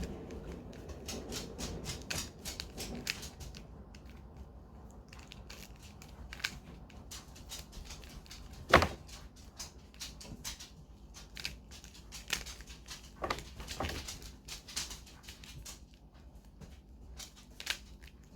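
Mirror cube being turned by hand: a steady, irregular run of small plastic clicks and rattles as its layers are twisted, with one louder knock about nine seconds in.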